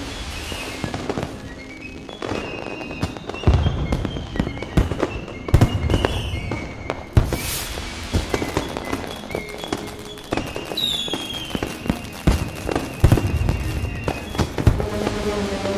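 Aerial fireworks bursting in quick succession, a run of booms and sharp bangs, with music playing underneath.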